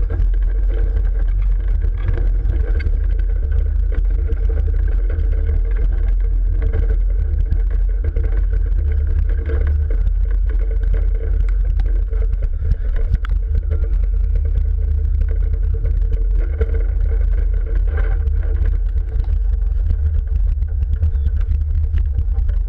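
Rutschebanen, a 1914 wooden roller coaster: its train rolling along the track, heard from on board, a steady heavy rumble with many small clattering knocks from the wheels and cars.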